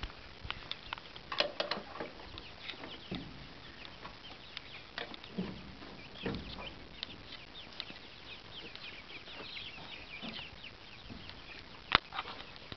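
A group of baby chicks peeping, many short high falling chirps overlapping throughout. A few knocks are mixed in, and a sharp click about twelve seconds in is the loudest sound.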